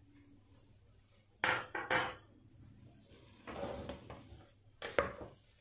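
A metal ladle and a wooden spatula knock against a pressure cooker a few times as a ghee tempering is emptied in. Then the spatula scrapes and stirs through the cooked rice and moong dal, with one more sharp knock near the end.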